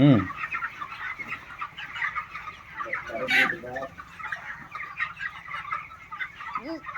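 A large flock of broiler chickens, about 29 days old, clucking and chirping together without a break, with a few louder single calls standing out right at the start, about halfway through, and near the end.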